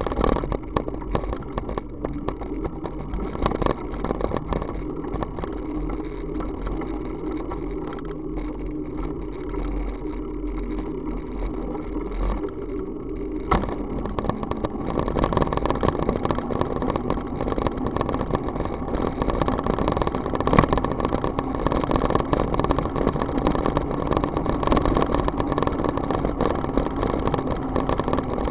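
Steady wind and road noise from a bicycle ride on wet asphalt, picked up by a camera mounted on the bike, with many small rattles. The noise gets louder about halfway through.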